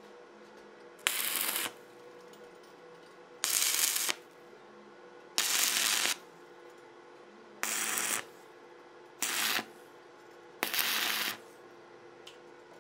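Stick (arc) welder making six short tack welds on the joints of a steel-strip frame: six separate bursts of arc crackle, each half a second to a second long, with a steady low hum between them.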